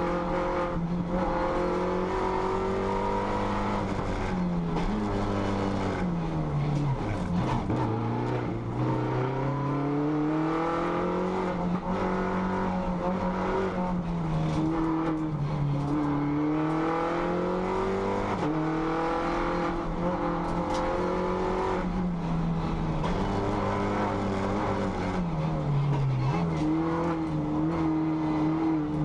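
Race-prepared MINI's engine heard from inside the caged cockpit, driven hard uphill: revs climb, drop at shifts and when lifting for bends, then climb again, over and over. The pitch falls lowest about seven seconds in and again near the end.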